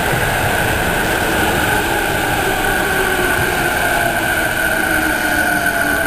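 Electric commuter train rolling on snowy track with a loud, steady rumble and a steady high whine, while a lower motor tone slowly falls in pitch as the train slows.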